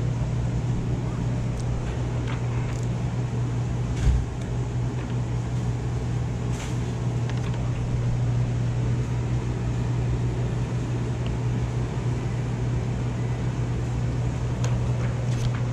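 A steady low mechanical hum, with a few faint ticks and one short knock about four seconds in.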